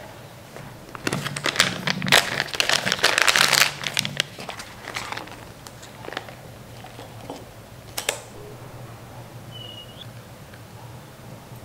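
Crinkling and tearing of a paper drip-coffee bag and its wrapper as it is opened and unfolded, a dense crackle for a few seconds near the start, followed by scattered small ticks and one sharp click about eight seconds in.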